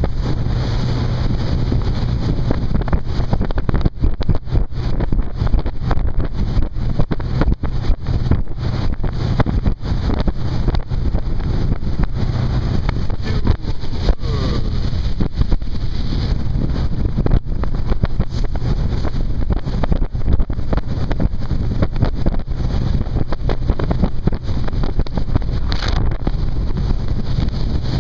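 Honda 130 hp four-stroke outboard running steadily as the boat cruises, with wind buffeting the microphone throughout.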